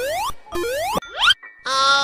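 Cartoon sound effects: three quick upward-sliding whistle-like tones, the first two about half a second each and the third shorter, then a fuller held sound comes in near the end.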